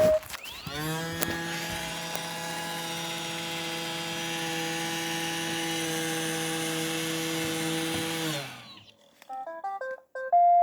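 Robot vacuum's motor spinning up with a rising whine, running steadily for about eight seconds, then winding down. A quick string of short electronic beeps follows near the end.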